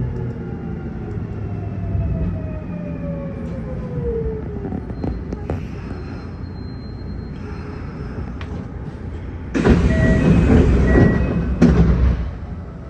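Kintetsu 1252-series electric train running and slowing, the whine of its inverter-driven traction motors falling in pitch over the first five seconds over a low rumble. Near the end there is a loud rush of air and rattling lasting about two seconds, which cuts off sharply.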